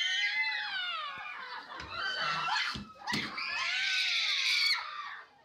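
A person screaming: two long, high-pitched screams that fall in pitch. The first fades about a second in and the second runs from about three seconds in until near the end, with a couple of knocks between them.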